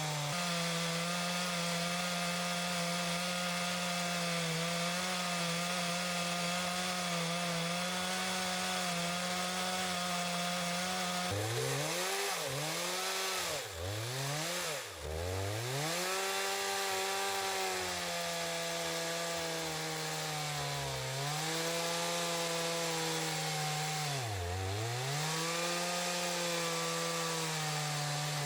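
Two-stroke chainsaw running at high revs while cutting into a log to hollow it out; about halfway through its pitch drops and recovers several times in quick succession, then twice more near the end, as the chain bites into the wood and the engine bogs under load.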